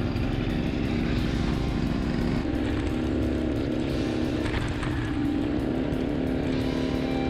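Pocket bike's small petrol engine running steadily under way, a buzzy note that shifts up a little about five seconds in.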